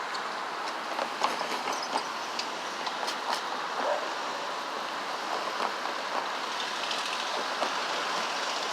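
A train rolling past a railroad crossing: steady running noise of the cars, with scattered sharp clicks and clacks from wheels over the rails.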